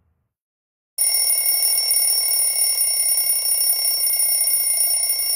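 An alarm clock ringing steadily and loudly, starting about a second in after a moment of silence: a wake-up alarm.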